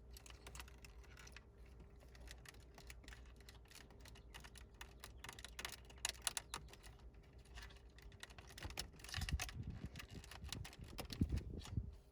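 Irregular small plastic clicks and rattles of a wiring plug being pushed and worked into the connectors on the back of a BMW E46 Business CD head unit. There are a few heavier knocks near the end.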